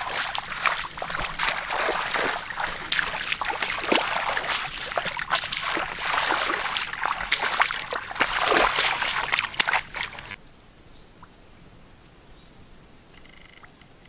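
Footsteps on leaf litter and bodies brushing through dense undergrowth: a steady rustling with many sharp crackles of leaves and twigs. It cuts off suddenly about ten seconds in, leaving a faint quiet background.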